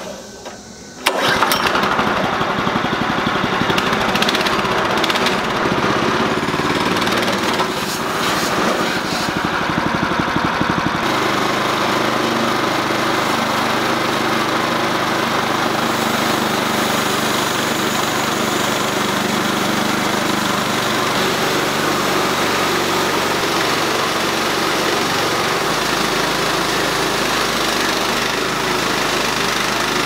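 Small gas engine of a portable band sawmill being pull-started, catching about a second in, then running steadily at working speed as the band blade cuts through a large ash log.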